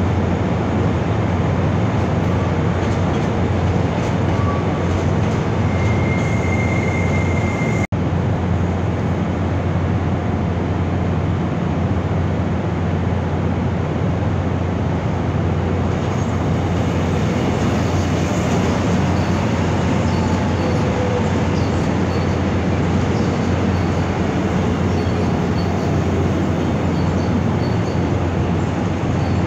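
Steady rumble of rail traffic on a station platform, with an electric commuter train rolling along a far track in the second half and faint, short high wheel squeals near the end.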